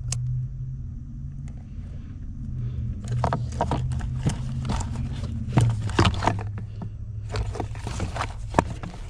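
Small clicks, taps and scrapes of hands working at a plastic wiring connector and its wires, over a steady low hum. The clicks come thickest in the second half.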